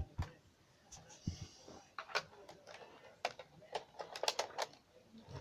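Irregular sharp plastic clicks and knocks as attachments are fitted onto and handled on a Nerf Modulus blaster. There is a cluster of quick clicks about four seconds in.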